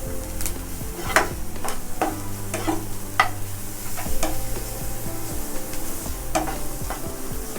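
Sliced onions and ginger-garlic paste sizzling in hot oil in a pan while a spatula stirs them, with sharp scrapes and taps of the spatula against the pan at irregular moments.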